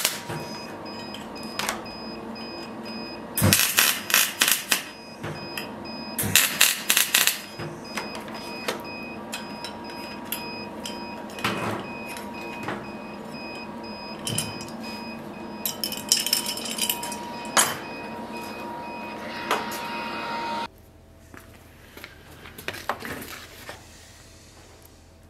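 Electric arc welding on small sheet-steel fittings clamped in a vise: three spells of loud crackling, each a second or so long, with a few short single clicks between, over a steady hum. The hum cuts off abruptly near the end, leaving it much quieter.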